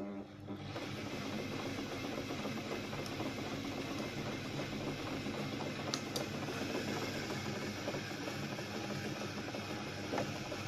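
New Home sewing machine running steadily as it stitches, with a couple of brief clicks about six seconds in.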